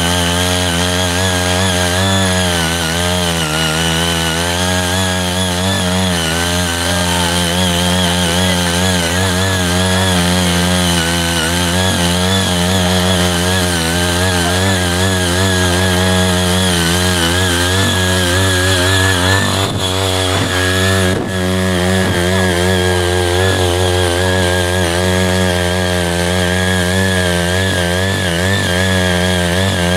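CY80 walk-behind power tiller's small engine running steadily under load as its rotary tines till cloddy soil, its pitch wavering slightly as the load changes. Two brief breaks about two-thirds of the way through.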